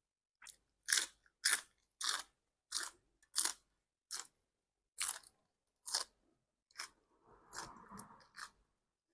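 A person chewing crunchy food close to the microphone: crisp, regular crunches at about one and a half a second, from raw vegetables and green papaya salad. The crunches grow softer toward the end, with a duller, muffled chew near the end.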